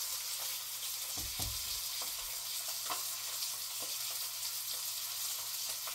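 Thick Kansas City strip steak searing in a frying pan, a steady sizzle with light crackles. A low knock comes about a second and a half in.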